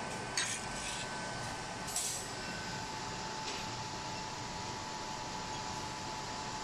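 Steady fan and airflow noise from a ZM-R730A rework station running, with a faint steady whine. Two short rustles break in near the start and about two seconds in.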